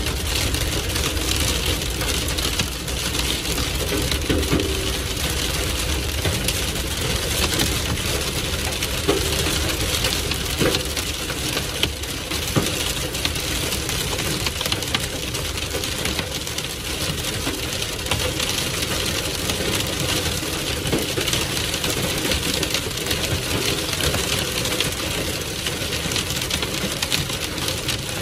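Heavy rain mixed with hail pelting a car's roof and windscreen, heard from inside the cabin as a dense, steady rattle of countless small impacts.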